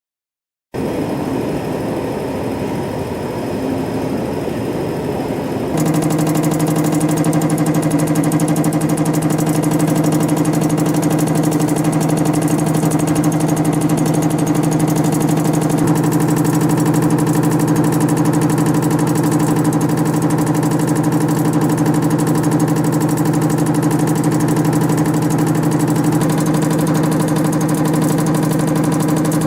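YHM CF-series CNC spring coiling machine running while forming compression springs, a steady mechanical hum. About six seconds in it steps up louder, with a steady low drone that holds to the end.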